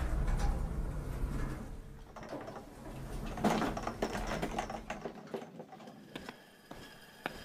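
A low rumble fades over the first two seconds as elevator doors slide open. About three and a half seconds in, a cleaning cart loaded with mops and a bucket rattles and clatters as it rolls out of the elevator, followed by scattered clicks and knocks.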